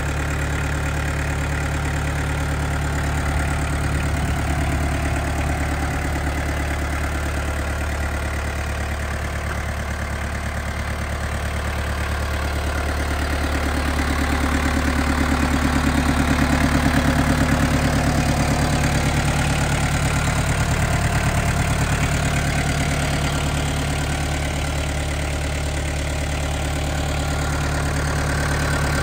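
Yanmar FX32D compact tractor's 32 hp four-cylinder diesel engine idling steadily, growing somewhat louder midway and easing off again.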